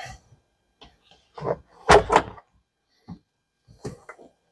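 A few separate thumps and knocks on the car's body, the loudest about two seconds in.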